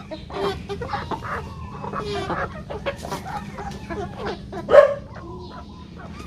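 A flock of native chickens clucking, with many short calls overlapping and one much louder call about three-quarters of the way through.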